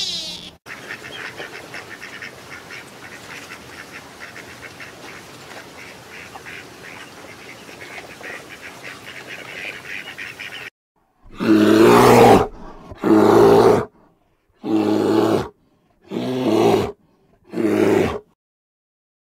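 Steady background noise for about ten seconds, then a large animal gives a series of five loud, deep calls, each about a second long, roughly a second and a half apart, with silence between them.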